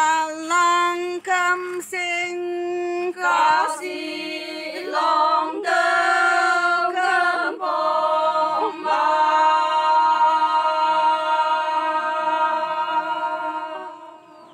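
A small group of Konyak Naga women singing a traditional song unaccompanied. They sing a run of short phrases, then one long held note that fades out near the end.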